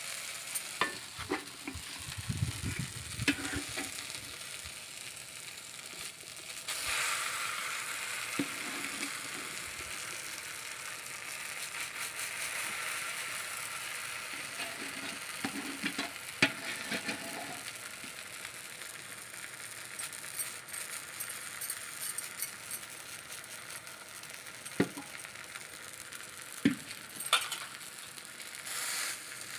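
Palm-fruit batter sizzling in hot oil in an iron kadai over a wood fire, a steady hiss that grows louder about seven seconds in. A few sharp clicks are heard here and there.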